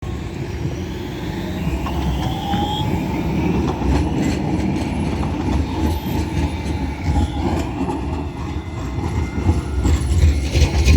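Tram running on street track: a steady low rumble with scattered clicks from the rails and faint gliding whines from the wheels or motors.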